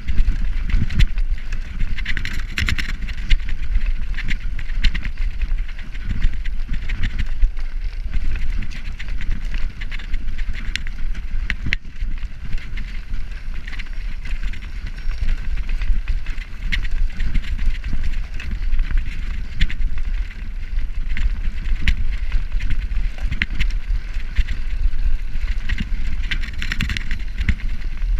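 Road bicycle shaking over rough cobblestones: a continuous rattling clatter of the frame and components, with dense irregular knocks over a heavy low rumble from the tyres on the stones.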